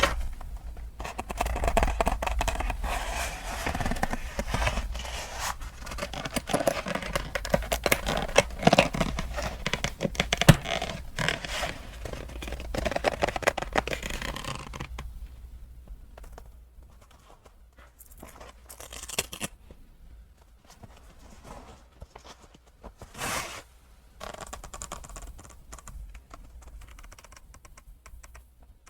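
Close-miked hand handling of leather goods and their packaging, as in an unboxing: dense rustling, scraping and tapping for about the first half, then sparser, quieter handling with a few short scrapes.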